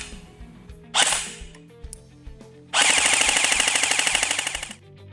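King Arms airsoft electric rifle (AEG) firing through a chronograph: a single shot at the start and another about a second in, then a full-auto burst of about two seconds at roughly 850 rounds a minute.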